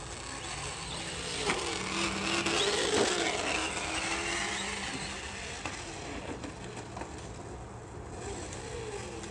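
Traxxas Slash RC truck's onboard sound module playing a recorded V8 truck engine through its speaker. The engine note rises and falls in pitch as the truck is driven, with a few sharp knocks along the way.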